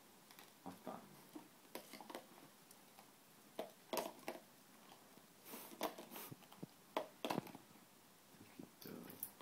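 Plastic rings clacking and knocking as they are dropped one after another onto the post of a plastic ring-stacking toy, in scattered light clicks with a few sharper knocks.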